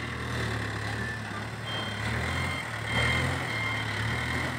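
Case backhoe loader's diesel engine working as the front loader bucket lifts and dumps soil into a tipper truck, its note swelling about three seconds in. A few short high beeps sound near the middle.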